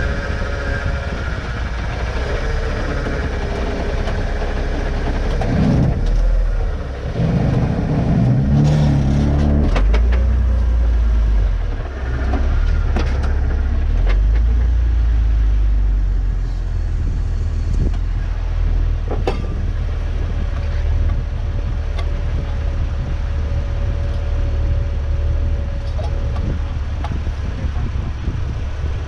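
Off-road vehicle's engine running under load as it crawls up steep slickrock, revving up and down in steps, with a heavy low rumble.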